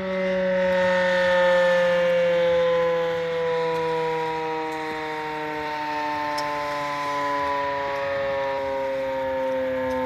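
Outdoor tornado warning siren winding down: its several tones slide slowly and steadily lower in pitch together as the rotor coasts to a stop.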